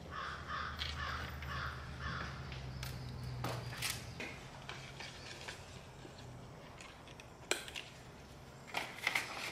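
Plastic tag fasteners on a new leather ball glove being handled and cut off with small cutters: a few sharp clicks and snips. A quick run of about five harsh rasps comes in the first two seconds. A low hum fades out about six seconds in.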